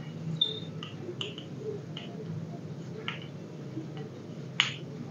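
Chalk writing on a blackboard: a string of short taps and brief scrapes as the letters are formed, the sharpest tap about four and a half seconds in.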